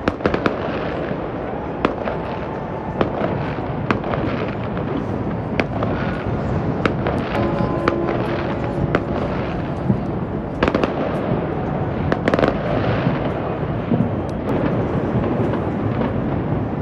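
New Year fireworks display: a continuous rumble of distant bursts with many sharp cracks and bangs scattered throughout. A few long steady tones sound around the middle.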